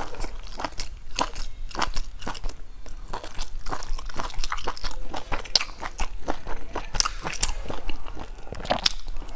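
Something crunchy being bitten and chewed: an irregular run of sharp crunches, several a second.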